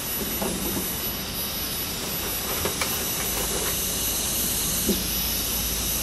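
Steady hiss of falling rain, with a few soft knocks as bamboo shoots are handled and set down on a wooden table.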